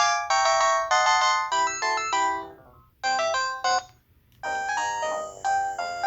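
Sangoma D10 IP DECT cordless handset playing electronic polyphonic ringtone melodies. A quick run of notes breaks off a few seconds in, a short phrase follows, and after a brief pause a different-sounding melody starts near the end.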